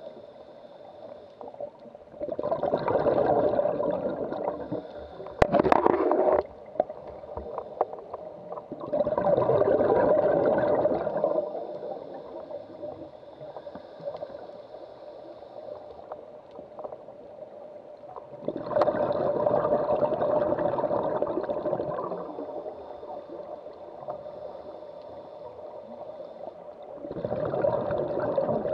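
Scuba regulator exhaust: a diver's exhaled air bubbling out in loud bursts of about two to three seconds, four times, with quieter stretches between breaths. A short run of sharp clicks comes about five and a half seconds in.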